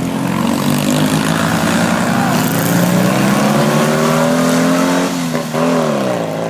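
Hill-climb race car engine under hard acceleration, its pitch climbing steadily; about five seconds in the throttle lifts briefly and the pitch falls sharply before it starts to climb again.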